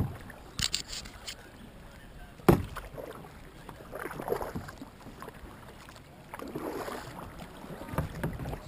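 Kayak paddle strokes: the blades of a double-bladed paddle dipping and splashing into the water in turn, with dripping, and a few sharp knocks, the loudest about two and a half seconds in.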